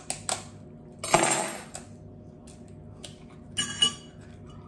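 A table knife tapping an egg to crack its shell: a few quick sharp taps, then a louder, longer knock about a second in. More clicks and a short crackle come as the shell is pulled apart over a glass measuring jug near the end.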